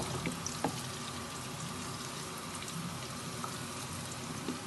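Thick hareesa, a porridge of wheat, lentils and chicken, simmering in a pot: a soft steady hiss with scattered small pops and clicks.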